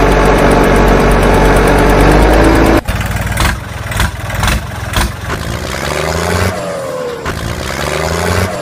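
Tractor engine sound effect laid over the scene: a loud stretch of engine working hard that cuts off abruptly near three seconds, a few sharp knocks, then the engine running with repeated revs rising in pitch.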